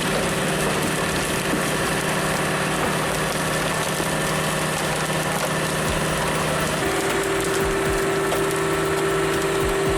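A Bell Super S firewood processor's 80-horsepower Cat turbo diesel engine running steadily. A steady higher whine joins it about seven seconds in.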